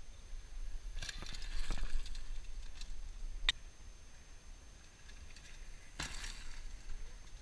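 A downhill mountain bike rides past close on a dirt trail, its tyres giving a brief rush on loose dirt about six seconds in. An earlier rustling burst comes about a second in, and a sharp click near the middle.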